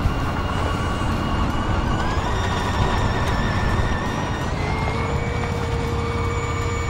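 Heavy highway traffic noise: a steady, dense rumble of passing vehicles. Over it runs a steady high whine that steps up in pitch about two seconds in and again around the middle.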